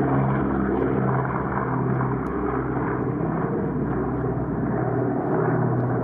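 Boeing B-29 Superfortress's four Wright R-3350 radial piston engines and propellers droning steadily at takeoff-climb power as the bomber passes close by.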